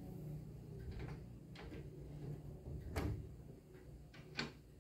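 The last of an Urgos grandfather clock's tubular chimes fading in a low hum. Several clicks and knocks sound as the clock's glass case door is handled and opened, the loudest about three seconds in and another near the end.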